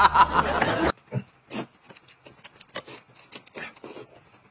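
Slurping and sipping at the table: short, irregular wet slurps of noodles being eaten and a drink being sipped from a glass. A loud wavering vocal sound cuts off abruptly about a second in, before the slurps.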